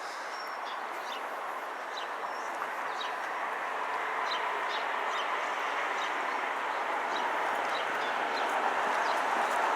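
Small birds chirping in short, scattered calls over a broad rushing noise that grows steadily louder.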